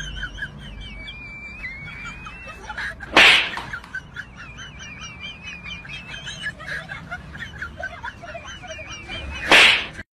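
Small birds chirping in quick repeated calls, with two short, loud swishes, one about three seconds in and one near the end.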